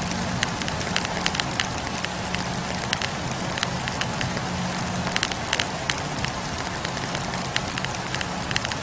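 Wood campfire crackling: many sharp, irregular snaps of burning logs over the steady rushing hiss of the flames, with a faint low hum underneath.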